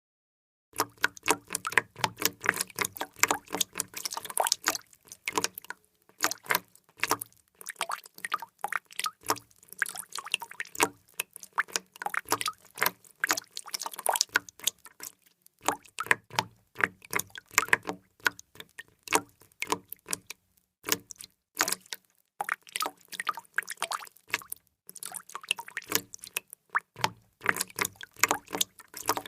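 Water drops falling fast and close together, many small splashy drips a second, starting a moment in and going on with a few brief pauses.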